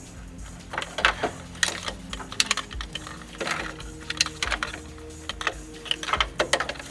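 Irregular clicks and light clattering of hand work on a car door's parts, over quiet background music.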